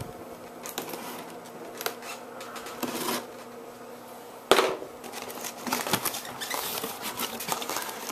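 Cardboard box being opened by hand: scraping and rustling of the flaps and packaging, with one sharp knock about halfway through, then denser crinkling of plastic wrapping near the end.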